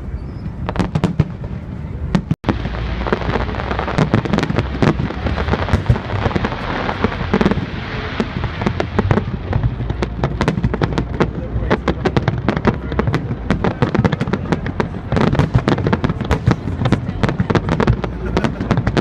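Fireworks display in full barrage: a rapid, near-continuous run of bangs and crackles, many bursts a second.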